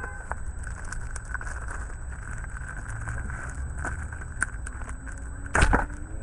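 Hands handling a clear plastic blister pack, with scattered light crinkles and clicks of the plastic over a steady low hum, and one louder crunch near the end.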